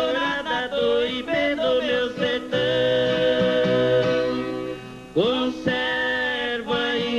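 Two men singing a música caipira duet in harmony over a plucked string accompaniment. About halfway through they hold one long note, break off briefly, then start the next line.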